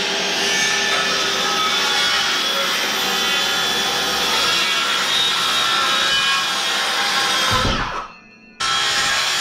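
Makita circular saw running at speed while it cuts across a wooden board. It spins down near the end, and after a short pause it runs again.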